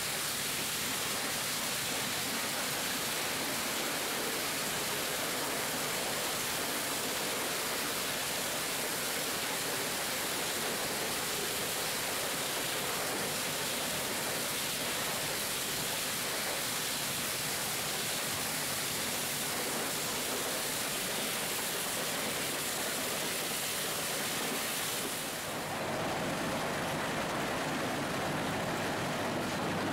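Scrap metal shredder running as a car body is fed down its infeed chute: a steady, dense crashing noise with no single knocks standing out. About 25 seconds in it changes to a duller machine noise with less hiss.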